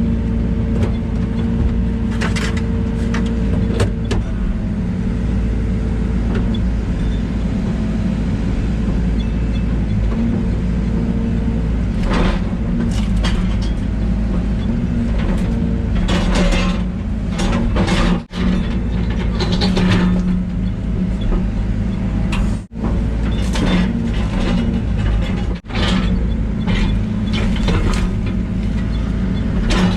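Excavator's diesel engine running steadily while it works, with scattered knocks and cracks through the second half. The sound cuts out sharply three times, each for a moment.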